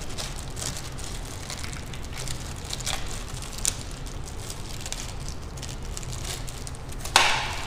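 Small plastic bag crinkling and rustling as a wired connector is taken out of it and handled, with scattered small clicks and a louder crinkle about seven seconds in. A faint low hum runs underneath.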